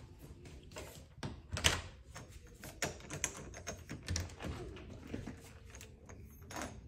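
A house door being unlocked and opened by its knob: a run of clicks and light knocks from the lock and latch. The sharpest click comes about a second and a half in, and there is a dull thump a little past the middle.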